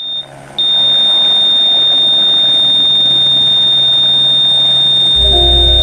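A loud, steady, high-pitched electronic tone starts about half a second in and holds unbroken, over a faint low hum. A deep low rumble and a few lower tones come in near the end.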